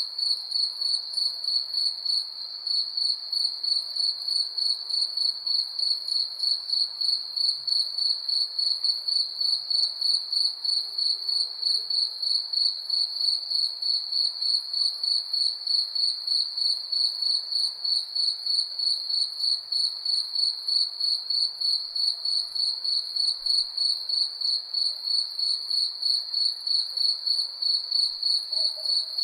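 Crickets chirping in a steady, rhythmic high trill, about three pulses a second.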